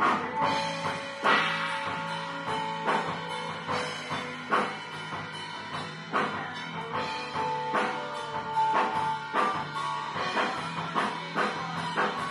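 Rock music with a drum kit keeping a steady beat under held melody notes.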